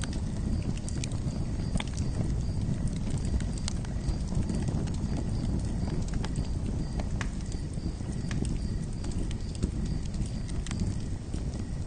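Campfire burning: a steady low rumble of flames with irregular sharp crackles and pops from the wood.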